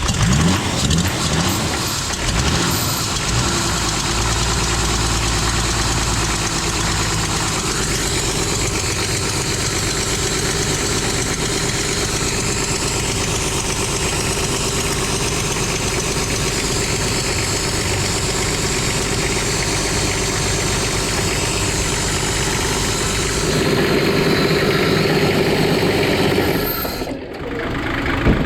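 Toyota 2H straight-six diesel engine just after starting: it picks up speed in the first couple of seconds, then runs steadily. It gets somewhat louder near the end.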